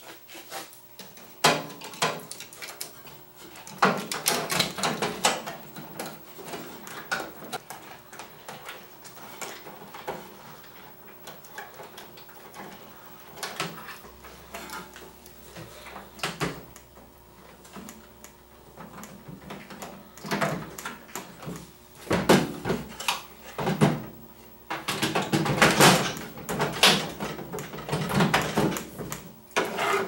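Irregular knocks, clicks and rubbing of a plastic door-interlock switch bracket being pushed back into place against the sheet-metal chassis of a microwave oven, with louder clattering bursts near the end.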